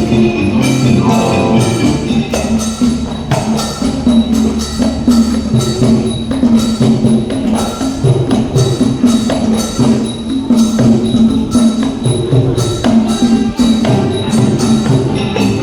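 Thai piphat ensemble playing a traditional piece: pitched mallet percussion and wind melody over a steady, evenly repeating percussive beat.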